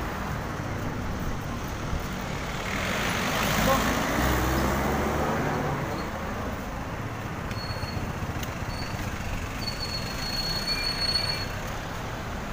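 Road traffic running by, with one vehicle passing close about three seconds in, its engine and tyre noise swelling and then fading as the pitch falls. A faint thin high squeal is heard around ten seconds in.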